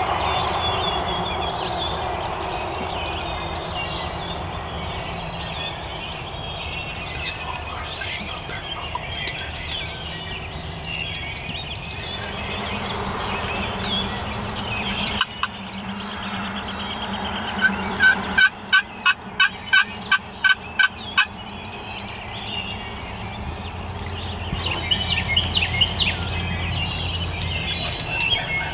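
Wild turkey calling. A run of about ten evenly spaced yelps comes about 18 seconds in and is the loudest part, with softer turkey calls and gobbling around it.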